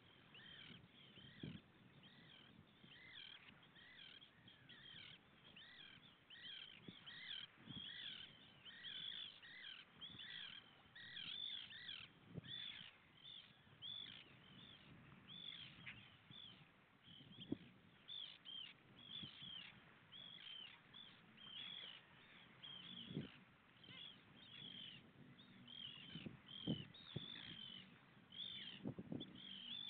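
Faint, continual calling of gulls: short downward-slurred calls, about two a second, overlapping. A few short low knocks come in between, more of them near the end.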